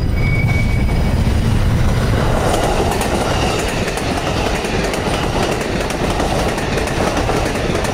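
Amtrak Pacific Surfliner passenger train passing close by. Its bilevel cars' wheels roll over the rails with a steady rumble that fills out and grows denser from about two and a half seconds in, as the cars go past.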